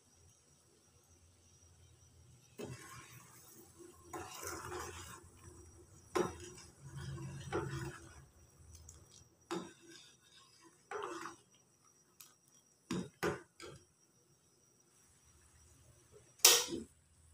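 Metal ladle stirring and scraping in an aluminium saucepan of agar-agar and water, with irregular clinks against the pan. A single sharp knock, the loudest sound, comes near the end.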